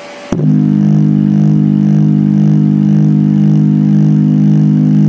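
Loudspeakers playing a loud, steady low drone of several held tones that cuts in suddenly a moment after a brief quiet gap.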